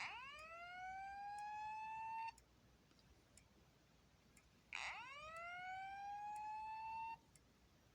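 System Sensor SpSW fire alarm speaker sounding a whoop evacuation tone: two rising sweeps, each a little over two seconds long and cut off sharply, the second starting about five seconds in.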